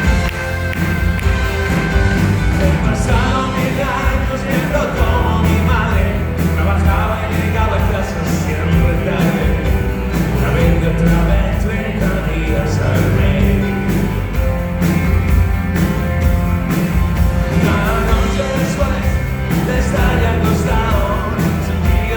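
Rock band playing a song, with a singer over heavy bass and drums.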